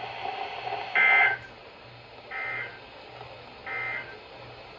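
Emergency Alert System end-of-message data bursts: three short two-pitch digital screeches about 1.3 s apart, the first louder than the other two. This signal marks the end of the National Weather Service warning broadcast.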